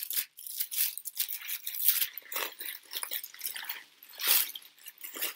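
Wrapping being unwrapped by hand: a string of irregular crinkles and rustles, with a louder rustle about four seconds in.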